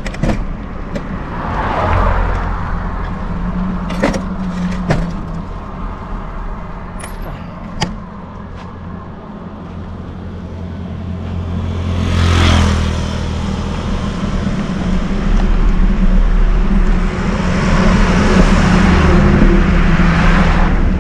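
Road traffic passing close by: a low engine hum throughout, one vehicle swelling past about twelve seconds in, and louder traffic building over the last few seconds. A few sharp clicks sound around four and eight seconds in.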